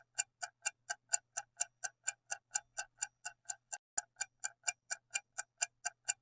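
Countdown-timer ticking sound effect: a quick, even clock tick about four to five times a second, marking the time left to answer.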